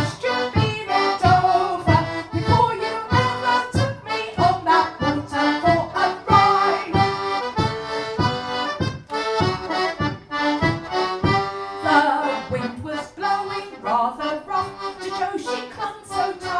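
Four-stop one-row melodeon playing a polka tune, its melody over a steady bass-and-chord beat of about three strokes a second.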